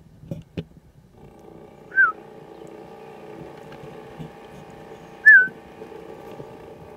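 A short, loud whistled note that slurs down in pitch, given twice about three seconds apart. Under it a steady low hum sets in about a second in, and a few knocks sound at the very start.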